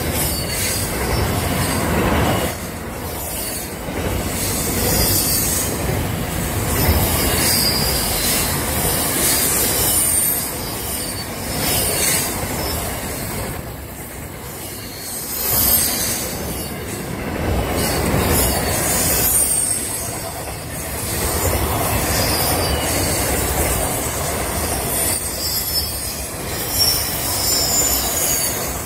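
Freight train wagons rolling past: double-stack container wagons and then box wagons, with a steady rumble that swells and fades every few seconds and an on-and-off high-pitched squeal from the steel wheels on the rails.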